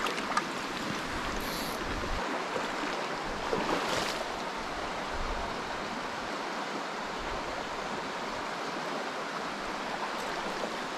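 Shallow mountain creek running over rocks, a steady rush of flowing water.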